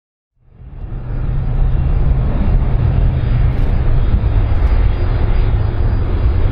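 Airbus A310-304 jetliner's engines running, a steady low rumble with a rushing hiss that fades in over the first second.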